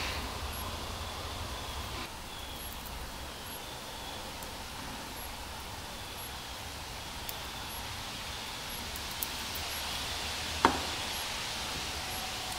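Workshop room tone with a steady low hum, as hands handle the engine parts. There is a light click about two seconds in and a sharper single tap near the end.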